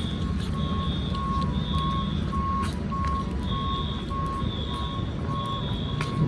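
Electronic beeping: a mid-pitched beep repeating evenly a little under twice a second, with a higher pulsing tone alongside, over a steady low rumble.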